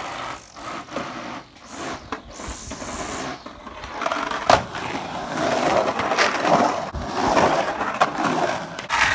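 Skateboard wheels rolling on the concrete of an empty swimming pool, swelling and fading as the board carves the walls in the second half, with a sharp clack about four and a half seconds in. The first few seconds hold quieter, irregular scraping.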